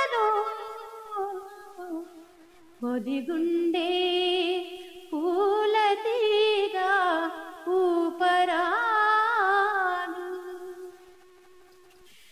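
A woman singing a Telugu song unaccompanied, in long held notes with ornamented glides and short breaths between phrases; her voice trails off near the end.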